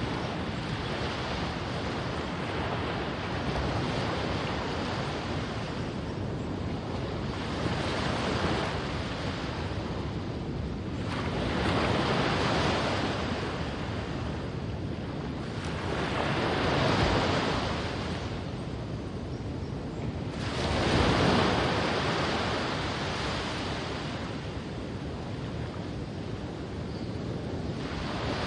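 Ocean surf breaking and washing onto a sandy beach, a steady rush that swells with each wave about every four to five seconds.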